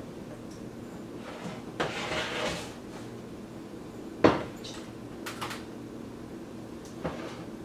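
Pots and pans being handled on a kitchen stove: a short scraping rustle, then one sharp clank about four seconds in, followed by a few lighter knocks.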